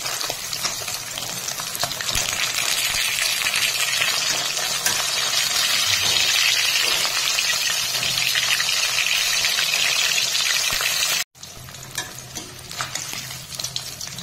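Katla fish steaks sizzling and crackling in hot mustard oil in a kadai as a metal spatula turns them. The sizzle swells about two seconds in, breaks off for an instant about eleven seconds in, and comes back quieter.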